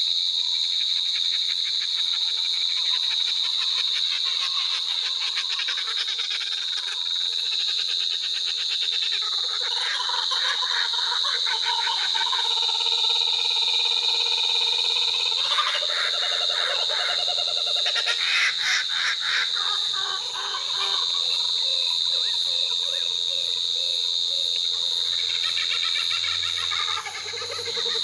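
Laughing kookaburras giving their chuckling laughing calls, coming in about a third of the way through and again near the end, over a steady high-pitched insect chorus.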